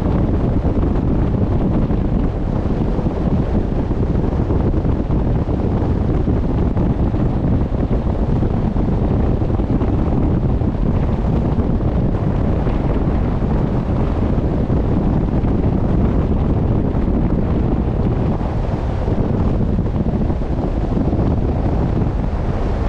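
Steady wind buffeting the microphone out on open sea, a dense low rumble with the wash of sea water beneath it.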